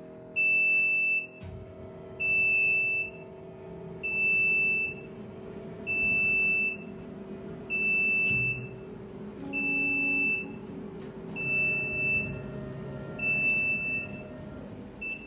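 The door-open safety alarm of a 100-watt OMTech CO2 laser cutter beeps because the lid is open. It gives one high, steady beep of nearly a second about every two seconds over a steady machine hum. The last beep is cut short near the end as the lid is shut.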